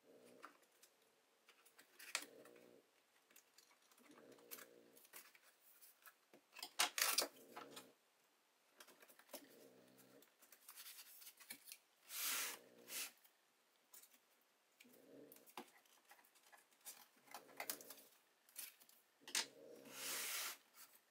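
Packing tape on a cardboard box being cut and torn off in scattered rasps and crackles, loudest about seven, twelve and twenty seconds in. Underneath, a small dog snores steadily, with a breath roughly every two and a half seconds.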